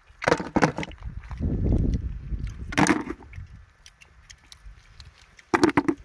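Oyster shells clacking against each other and against a plastic bucket as they are dropped in, in three short bursts of knocks, with a low rumble about a second in.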